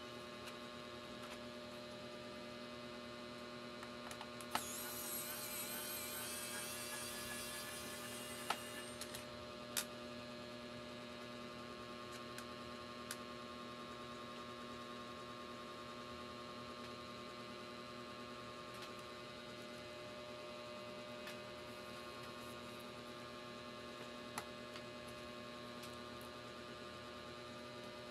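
Steady electrical mains hum, with a few light clicks. About four seconds in, a high whine rises slightly in pitch and lasts about four seconds.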